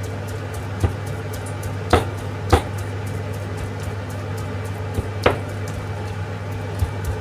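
Kitchen knife chopping ground meat on a plastic cutting board: a handful of sharp, irregularly spaced knocks, about a second or more apart, over a steady low hum. The meat is being chopped to make it sticky for meatballs.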